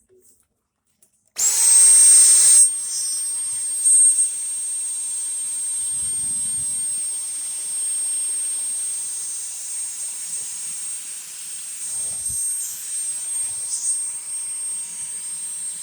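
Dyson V10 cordless stick vacuum switched on about a second and a half in, its motor spinning up quickly to a steady high-pitched whine over a rush of airflow. It is louder for about the first second, then settles to a steady run, with a few low knocks later on.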